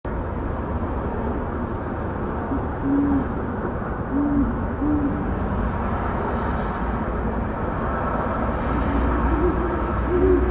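Owl hooting: a few short, low hoots about three to five seconds in, then a quicker run of hoots at two slightly different pitches near the end, over steady background hiss and hum.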